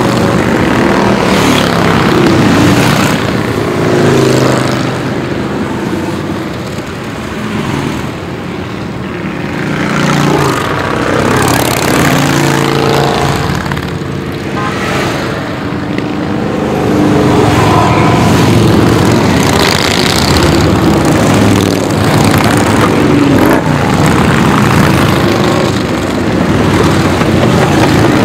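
A steady stream of cruiser and touring motorcycles riding past one after another, each engine's pitch rising and falling as it goes by. The passing eases off for a few seconds early on, then grows louder and denser through the second half.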